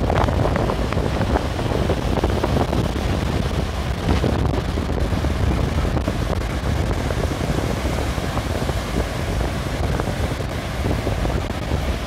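Strong wind rumbling on the microphone, over the steady wash of choppy sea waves breaking on the shore.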